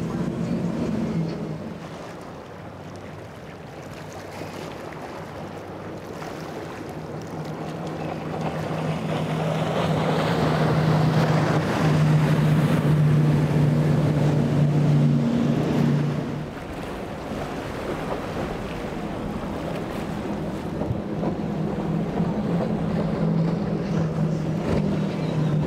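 Big center-console boats on multiple high-powered Mercury outboards running at speed through inlet chop: a steady outboard drone over rushing water and hull spray. It swells to its loudest as a boat passes close in the middle, then drops suddenly about two-thirds through.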